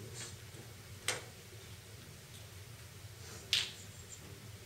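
Sheets of paper being handled and shuffled: two short sharp paper snaps about two and a half seconds apart, the second louder, over a steady low room hum.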